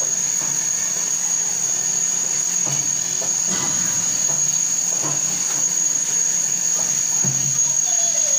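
Plasterer's steel trowel scraping plaster onto a concrete wall in irregular strokes, over a constant high-pitched whine and a low steady hum.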